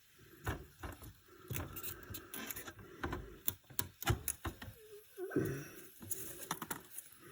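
Irregular clicks, knocks and light rattling from a countertop popcorn machine being handled as its kettle is tipped with the dump handle and the popped corn is taken out.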